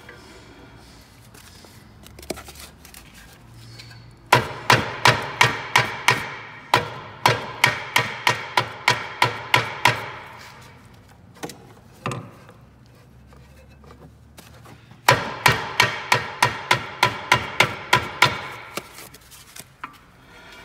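Rapid hammer blows on the Tesla Model S rear brake disc, about three a second in two long runs, with a metallic ring after each blow. The blows are trying to free a disc that is stuck fast on the hub.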